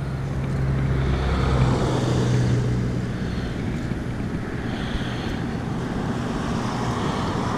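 Steady low drone of distant motor traffic, swelling slightly about a second in and easing back after about three seconds.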